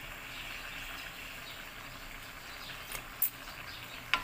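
Steady hiss of calabash and shrimp simmering in a wok on a gas burner, with birds chirping faintly. Two sharp clicks, about three seconds in and just before the end.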